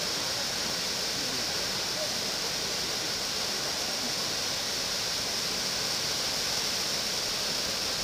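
Haew Narok waterfall pouring down a rock face: a steady, unbroken rushing of falling water.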